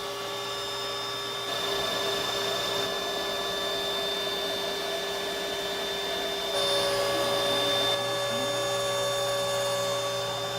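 DIY CNC router's spindle running steadily while cutting wood, a continuous high whine. Its tone changes twice, about a second and a half in and again past the middle, as the cut moves on.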